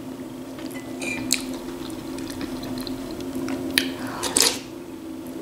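Eating borscht with a metal spoon: chewing, with a slurp from the spoon about four seconds in and a few small clicks. A low steady hum runs underneath.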